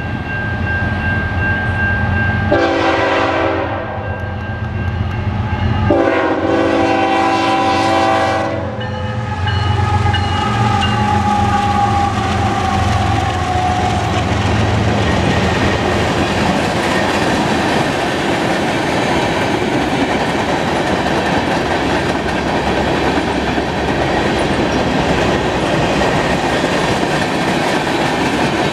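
Canadian National freight train: the lead diesel locomotive's air horn sounds two blasts, a shorter one about two and a half seconds in and a longer one about six seconds in, over the locomotives' engines. From about ten seconds on, freight cars roll steadily past with a rumble and clickety-clack of wheels over the rail joints.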